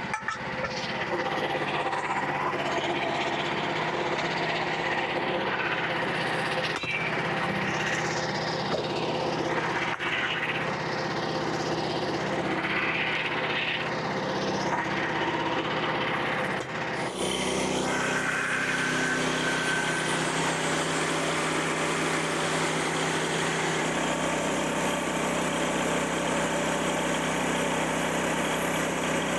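Engine of a Frontier OS27 portable bandsaw mill running steadily, its pitch wavering in the first part. The sound changes abruptly about seventeen seconds in and settles into a steadier drone.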